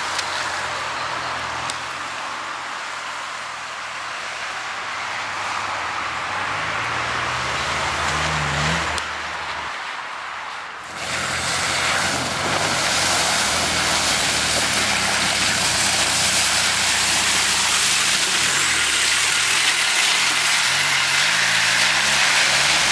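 Land Rover Discovery engine revving up and down as the 4x4 drives through deep, waterlogged mud ruts, over a steady hiss of tyres churning mud and water. The sound dips briefly and comes back louder about eleven seconds in.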